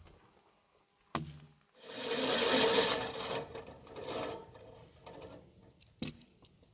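Wood knocking and scraping against wood: a sharp knock, then a loud rough scrape lasting about a second and a half, a shorter scrape, and another knock near the end. The sawmill engine is not running.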